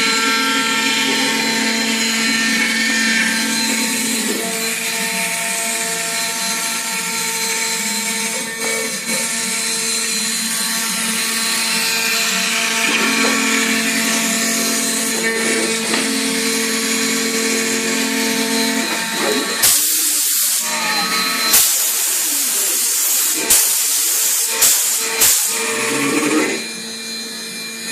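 Large CNC router running and cutting MDF board, its spindle giving a steady pitched whine over a hiss. About two-thirds of the way in comes a series of sharp cracks, and the sound drops quieter shortly before the end.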